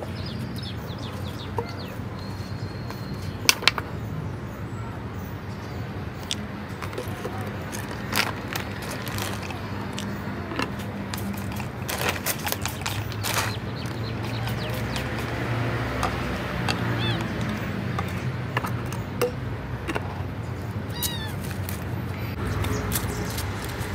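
Scattered clicks and knocks of plastic bottles and a cat-food packet being handled, over a steady low hum. A cat meows briefly near the end.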